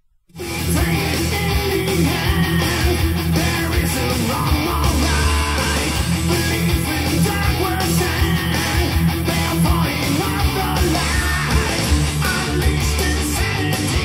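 Heavy metal song with electric guitars and a steady drum beat, played back through an Edifier D32 speaker; it starts after a moment of silence at the very beginning.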